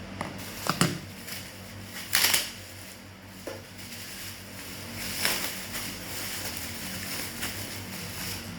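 Packaging being handled by hand: a few sharp clicks and knocks, then two short crinkling rustles, the louder one about two seconds in. A steady low hum runs underneath.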